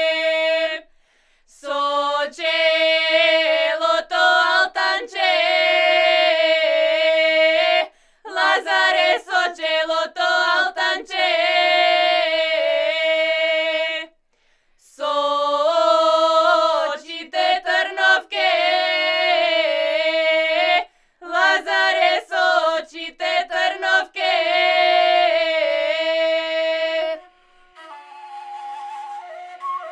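A group of young women singing a traditional Macedonian Lazarus Saturday (lazarki) ritual song unaccompanied, in phrases of several seconds broken by short pauses for breath.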